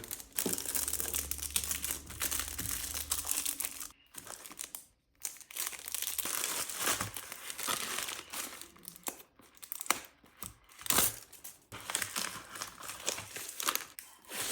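Packaging being crinkled and handled, in irregular crackling bursts with a brief pause about four seconds in.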